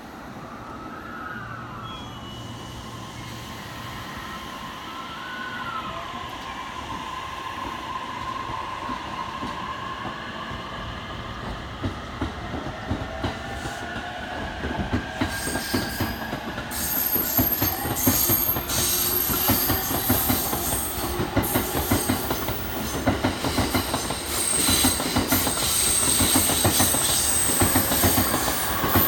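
Electric train moving through the station. A gliding electric motor whine is heard early on, then the wheels clatter over rail joints with some squeal, growing steadily louder.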